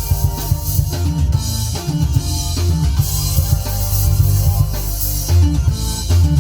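Recorded music with a drum kit, bass and guitar, played back from a CD on a Philips CD614 compact disc player.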